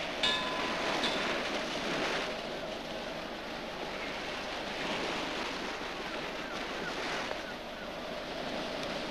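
Sea waves washing and wind blowing steadily. About a quarter second in there is a ringing metallic clink, and a lighter one follows about a second in.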